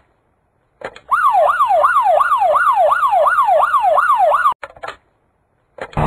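Siren sound effect: a loud tone sweeping rapidly up and down, about three times a second, starting about a second in and cutting off abruptly after some three and a half seconds.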